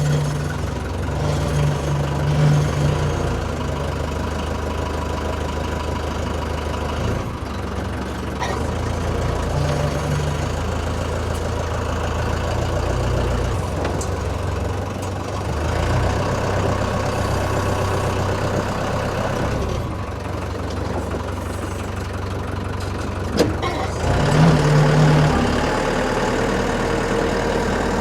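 Tractor engine running steadily, with a few short knocks and clanks over it.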